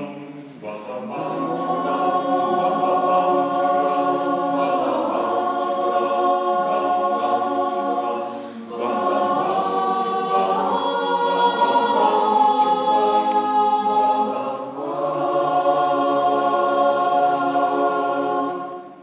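Mixed choir of men and women singing held chords, phrase after phrase, with short breaks between phrases; the singing fades out at the end.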